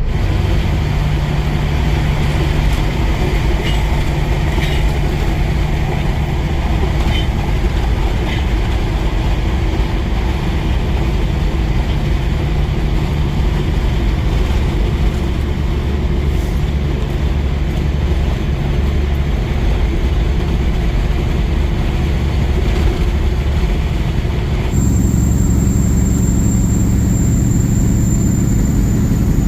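Semi truck cruising at highway speed, heard inside the cab: a steady loud drone of engine and road noise. About 25 seconds in the sound changes abruptly to a different steady drone with a thin high whine added.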